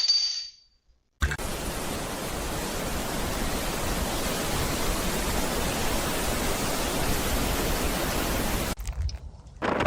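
A steady, even rushing hiss, like static, that starts abruptly about a second in and stops abruptly near the end.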